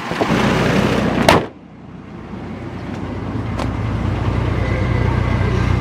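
A car hood slammed shut about a second in, after which the 2004 Chevy Trailblazer's engine is heard idling, steady and duller with the hood down. The engine runs for the A/C recharge.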